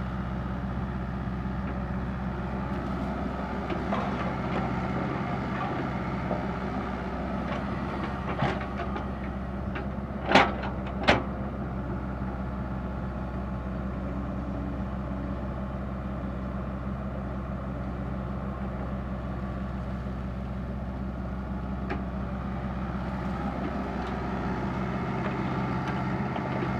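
Komatsu PC60-5 excavator's diesel engine running steadily under work, with a few knocks and two loud sharp clanks close together about ten seconds in.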